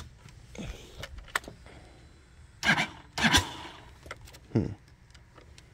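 Light clicks and brief handling knocks at a Lifan X-Pect motorcycle's handlebar controls and ignition switch, with the engine silent: the starter button is pressed and the starter does not crank. Two louder short rustling sounds come near the middle.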